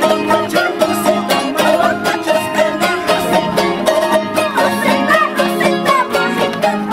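Andean charango music: a small, bright-toned stringed instrument strummed in a fast, steady, driving rhythm of tinku dance music.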